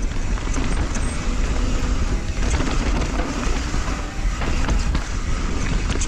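Mountain bike riding down a dirt trail: a steady rumble of wind on the microphone mixed with the rattle and chatter of tyres and frame over rough ground.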